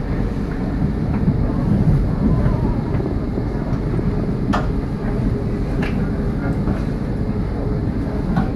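A passenger train running at speed, heard from inside the carriage: a steady low rumble of wheels on the track, with a few sharp clicks about halfway through and near the end.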